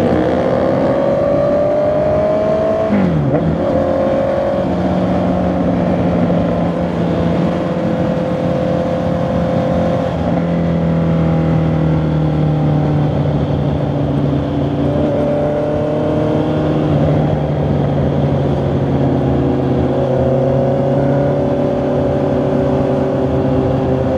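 Honda CB650R's inline-four engine and exhaust under way. The revs climb, drop sharply about three seconds in at a gear change, then hold steady at cruising speed with small rises and dips.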